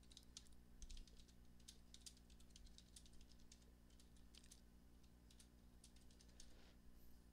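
Faint typing on a computer keyboard: quick runs of keystrokes in the first half, then a few scattered keys.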